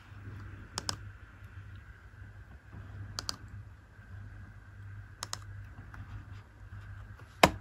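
Microsoft Bluetooth Mobile Mouse 3600 buttons clicking four times, a couple of seconds apart, each click a quick pair of snaps from press and release; the last one, near the end, is the loudest. A steady low hum runs underneath.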